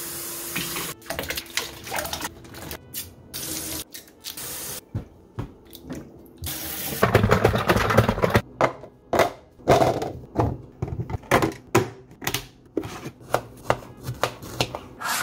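Water running from a tap into a sink in short spells, with a run of irregular knocks and clatters through the second half.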